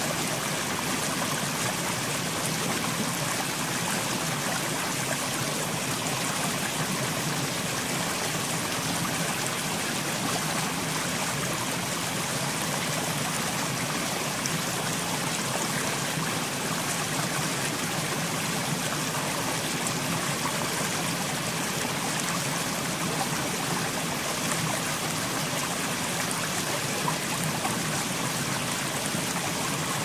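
A steady, even rushing noise, like running water, with no breaks or distinct calls.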